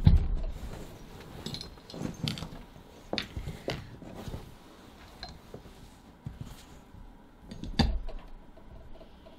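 Hand press with a hole-punch die punching through the tote's fabric base: a heavy thunk at the start and another about eight seconds in. Between them come several lighter knocks and clicks as the fabric is moved to the next mark.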